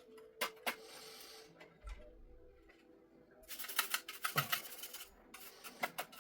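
Parts of an old desktop PC being handled: a couple of sharp clicks and a short hiss early, then a run of rapid clicking and rattling of hard parts for a few seconds near the end.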